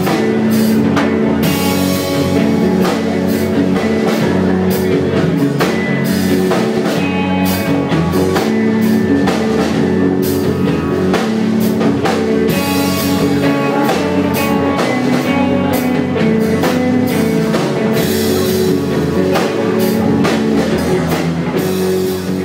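Rock band playing an instrumental passage with drum kit and electric guitar, steady beat.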